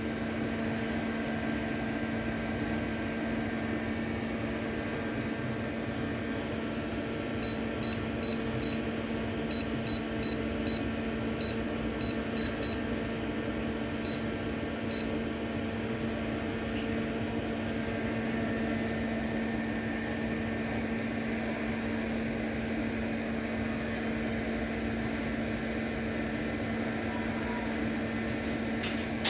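Steady electrical machine hum, with a string of short high beeps in quick groups between about 7 and 15 seconds in: the touch panel beeping as its screen is pressed.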